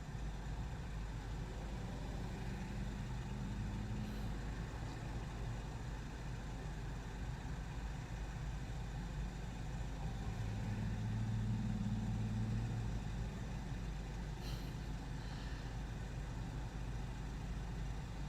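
Steady road and engine noise inside a moving car's cabin, with a low hum that swells for a few seconds about ten seconds in.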